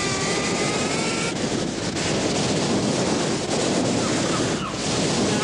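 Ocean surf breaking on a beach: a steady, loud wash of waves. A faint high tone sounds over it for about the first second.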